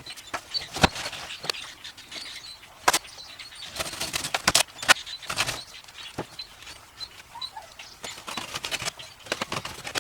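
Irregular knocks, clicks and rustling as the pressure washer's packaging and accessories are handled during unpacking, with a stretch of denser rustling about halfway through.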